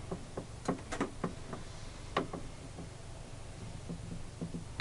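Light, irregular clicks and taps from the wooden trunnion mechanism of a homemade table saw as its threaded adjusting rod is turned by hand. They come thickest in the first half and are fainter and sparser after.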